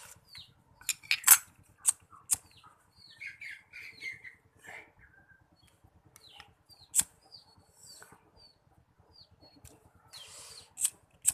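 Scattered sharp clicks and taps of small parts and tools being handled during wiring work, with a couple of brief rustles and faint short bird chirps in the background.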